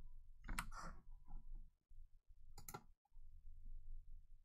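A few faint computer-mouse clicks, one early and a quick pair about two and a half seconds in, over a low room hum.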